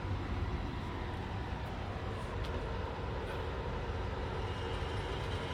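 Steady low rumble of a running engine, with a faint even hum.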